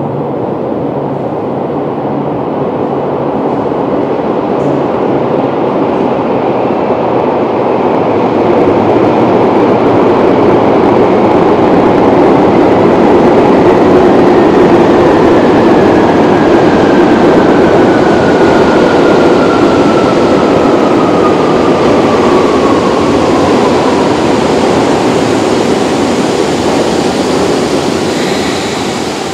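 Nagano Electric Railway 8500-series electric train (ex-Tokyu 8500) approaching through an underground tunnel and arriving at the platform. A loud rumble builds to a peak about halfway through and then eases, while a thin whine falls steadily in pitch as the train slows.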